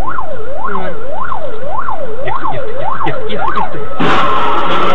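Emergency vehicle siren sweeping up and down quickly, almost two rises a second. It cuts off about four seconds in and gives way to a loud hissing noise.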